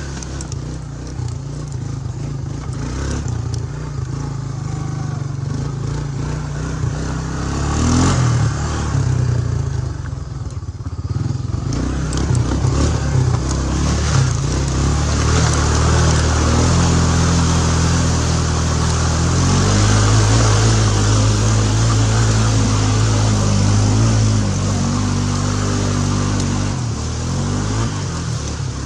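ATV engine running under changing throttle as it is ridden along a rough trail, its pitch rising and falling, and it gets louder and pulls harder through the second half.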